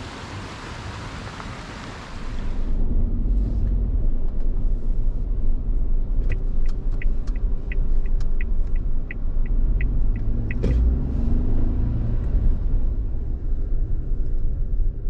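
A steady rushing hiss for the first couple of seconds, then the low rumble of a Suzuki Jimny JB64 driving on a forest road: engine and tyre noise. Midway there is a run of even light clicks, about three a second, then a single knock.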